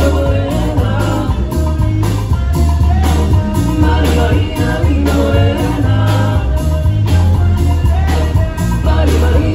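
A live Latin dance band playing, amplified through a PA, with male lead and backing singers over a steady beat of timbales, congas and a heavy bass line.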